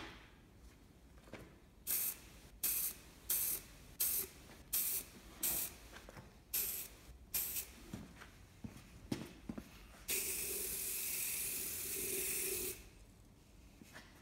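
Aerosol can of matt black spray paint hissing in about eight short bursts, then one long spray of nearly three seconds near the end, as paint goes onto the inside of a bare metal ammo box.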